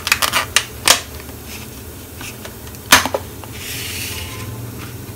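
Clear plastic clamshell egg carton being handled: a quick run of crinkles and clicks in the first second, then a sharp snap about three seconds in as the lid pops open.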